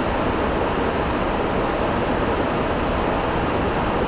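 Steady rushing in-flight cockpit noise of an Airbus A340 flight deck, airflow and engine noise heard as an even hiss.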